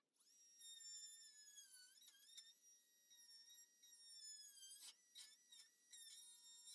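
Dremel rotary tool running at high speed with a cutoff wheel, a faint high-pitched whine that dips briefly in pitch about two seconds in. A few short scraping clicks come near the end.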